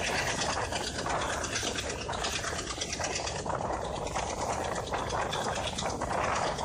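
Steady rush of wind and running noise from a diesel-hauled passenger train at speed, heard from an open coach door just behind the locomotive.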